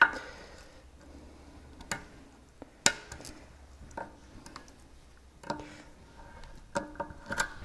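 Irregular small metallic clicks and taps of pliers working a steel cotter pin out of a sterndrive trim ram's pivot pin, a few of them with a brief ring.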